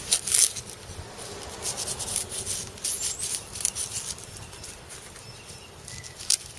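Handling noise from knives and sheaths being moved about: rustling with scattered light clicks, loudest near the start.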